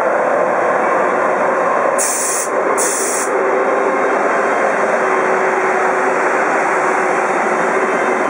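Czech Railways class 151 electric locomotive passing close by with its coaches: a steady loud hum and rumble of the running locomotive and its wheels on the rails. About two seconds in come two short bursts of high hiss.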